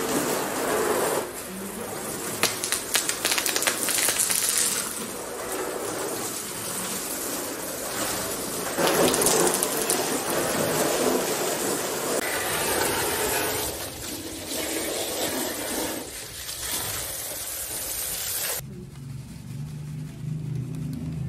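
Water from a garden hose spraying and splattering onto plastic car floor mats, the spray rising and falling in strength. It stops abruptly near the end.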